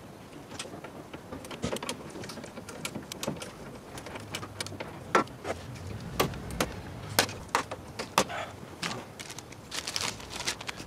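Irregular sharp clicks and taps of hands working plastic car trim and clips at the front of an engine bay, loudest between about five and eight seconds in.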